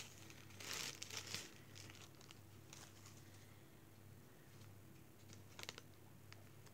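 Crinkling and rustling of the white wrapping as a pair of sunglasses is unwrapped, loudest in the first second and a half. Then faint handling, with a brief rustle and clicks about five and a half seconds in.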